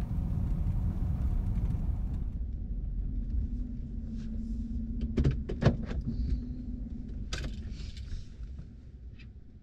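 Pickup truck cab noise on the move: a steady low road-and-engine rumble that fades toward the end. A few sharp clicks and knocks come about five to six seconds in, and one more at about seven and a half.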